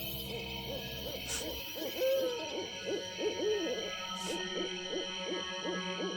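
Owls hooting: a quick run of short, overlapping hoots, each rising and falling in pitch, over a steady background drone.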